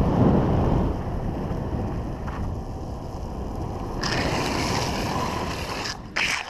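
Wind rushing over the microphone of a camera riding a downhill longboard at speed, with the steady rumble of wheels rolling on asphalt. About four seconds in the noise turns hissier, and a short sharp burst of noise comes near the end.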